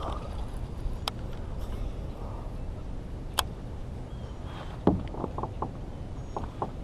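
Kayak on the water: a steady low rumble with two sharp clicks, a louder thump about five seconds in, then a short run of knocks against the hull.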